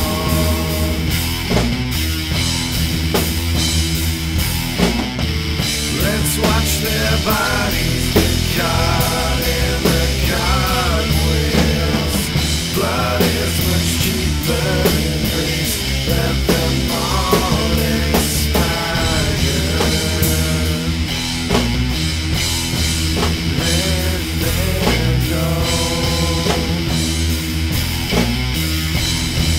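Loud, heavy rock music: a wavering melodic lead over a dense, steady low backing with frequent cymbal-like hits.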